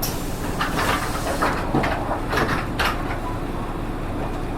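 Interior sound of a PKG-RA274MAN city bus: the engine running steadily underneath, with several short hisses of air over the first three seconds.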